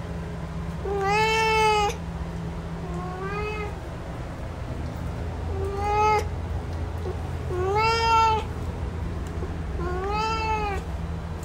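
A male cat meowing five times, roughly every two seconds, each meow rising and then falling in pitch. A low steady hum runs underneath.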